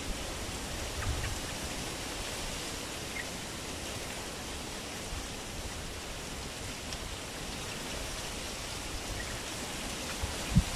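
Steady outdoor rushing noise, most likely wind on the microphone and in the foliage, with a dull low bump near the end.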